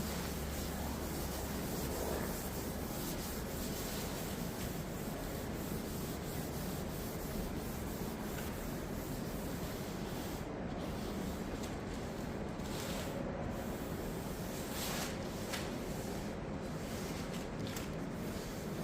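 Maroon abrasive pad scrubbing a wooden dresser top wet with mineral spirits. It is a steady rubbing with a few brief breaks between strokes in the second half. This is the final clean-up after chemical stripping, lifting the gummy residue of the old finish.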